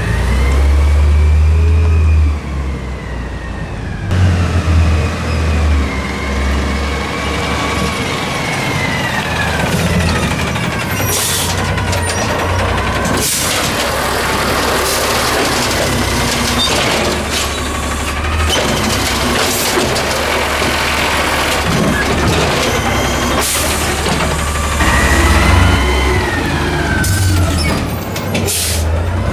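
Natural-gas Freightliner M2 garbage truck with an Amrep automated side-loader arm at work. The engine's pitch rises and falls again and again as the hydraulic arm grabs, lifts and tips curbside carts. Several sharp clanks, mostly in the second half, come from carts knocking against the arm and body.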